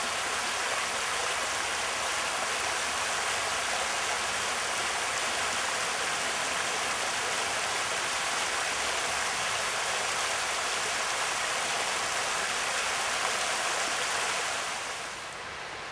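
River water rushing through a shallow stretch of white water, a steady rush that drops off sharply shortly before the end.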